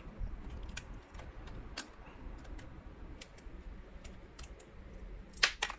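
Scattered light clicks and taps from a small screwdriver and the laptop's plastic and metal parts as the Wi-Fi card is worked loose, with a few louder clicks in quick succession near the end.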